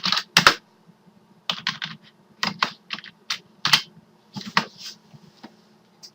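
Computer keyboard keys being pressed: irregular sharp clicks, singly and in quick groups of two or three, over a faint steady electrical hum.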